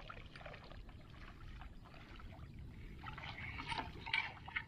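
Faint, irregular sloshing and splashing of legs wading through shallow floodwater, a little louder from about three seconds in.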